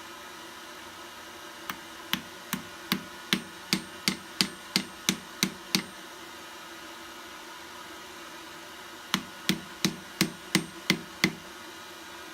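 Hand hammer striking a hot metal leaf laid over a wooden block, bending it into a curve. About a dozen blows come at about three a second, then a pause, then about seven more.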